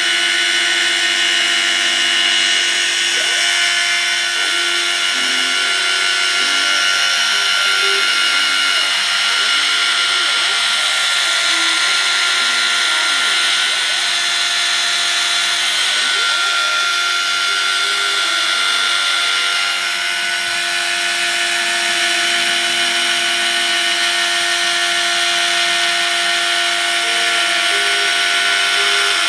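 Desktop CNC milling machine running continuously, its spindle turning a small cutter that mills contours into a white plastic sheet, with a steady whine over a high hiss of cutting. Underneath, the axis motors give short tones that change pitch every fraction of a second as the machine moves along the cut.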